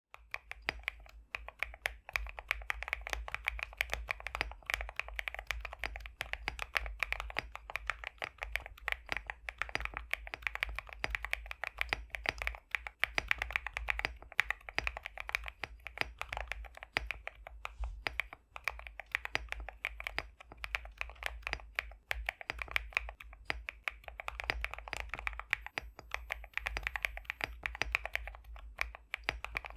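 Continuous fast typing on an Epomaker x Createkeebs High65 v2 custom mechanical keyboard fitted with pre-lubed BSUN X linear switches: dense, rapid key strokes with a thocky, creamy sound.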